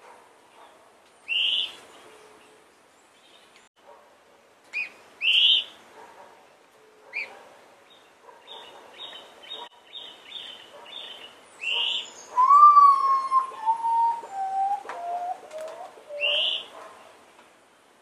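A potoo singing a series of clear, mournful whistles, each note lower than the last, starting about two-thirds of the way in. Other birds give short sharp chirps throughout and a quick run of ticking calls before the song.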